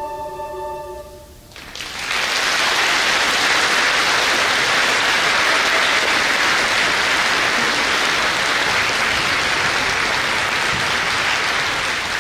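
The final held chord of a school choir and string orchestra dies away about a second and a half in, and an audience breaks into steady applause.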